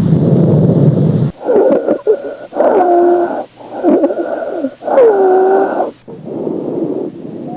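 Lung sounds heard through a stethoscope: wheezing, with musical whistling tones over four breath phases, one tone sliding downward. This is typical of narrowed airways, as in asthma. Before it, a low, even rushing breath sound cuts off about a second in, and a softer rushing breath sound starts near the end.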